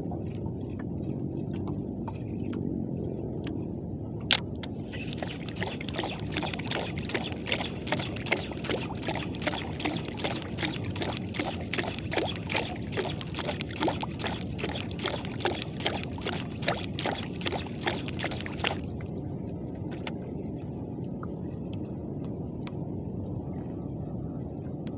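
Iroly Sephia 4000 spinning reel being cranked, a whirring with a regular tick about two to three times a second, starting just after a sharp click about four seconds in and stopping suddenly after some fourteen seconds, as the metal jig is worked up. A steady low rumble of the boat and sea runs underneath.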